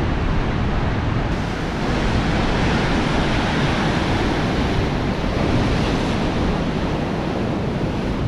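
Rough surf washing and breaking, a steady wash of noise, with wind buffeting the microphone.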